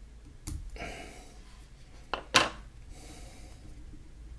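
Quiet fly-tying handling noises: fingers working the thread and tools, a soft rub about a second in and a sharp click about two and a half seconds in, over a low steady hum.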